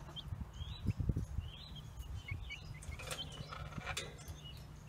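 Young chicks (Ameraucana, Rhode Island Red and New Hampshire Red pullets) peeping, with short arched chirps scattered through and busiest near the end. Under them runs a steady low hum, and there are a few dull thumps about a second in.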